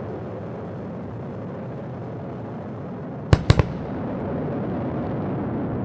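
Sonic boom from the returning Falcon 9 first-stage booster: three sharp bangs in quick succession about three seconds in, over a steady low rumble.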